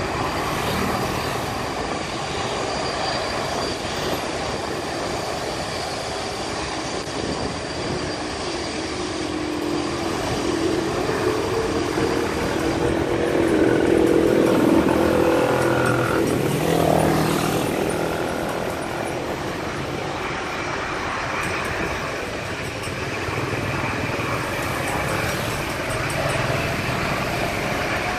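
Jet engines of a Boeing 787 taxiing across the airfield, a steady rushing hum mixed with road traffic. The noise swells for a few seconds around the middle, with a falling pitch near its end.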